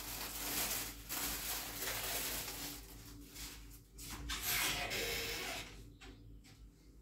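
Plastic packaging rustling and crinkling as it is handled, for about three seconds, then once more briefly about four seconds in.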